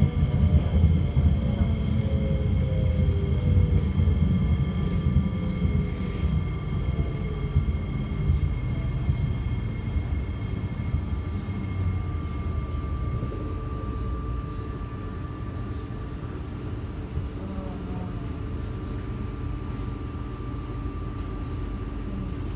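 Kawasaki & Nippon Sharyo C751B metro train heard from inside the car as it brakes into a station: the motor whine falls in pitch and the rumble fades over the first several seconds as the train comes to a stop. A steady electrical hum from the train's equipment remains while it stands at the platform.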